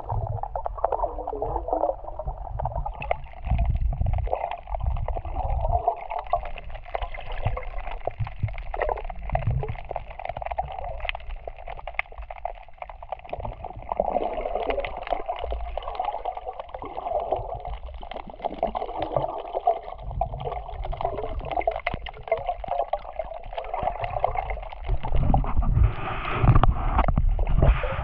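Muffled sea water gurgling and sloshing, heard as if underwater, with irregular low rumbling surges of the swell and a louder surge near the end.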